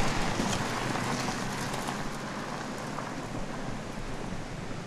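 BMW X3's tyres crunching over a loose gravel track as it drives away, the noise slowly fading.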